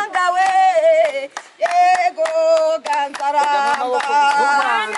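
A group singing a song with rhythmic hand-clapping, with a brief pause in the singing about a second and a half in.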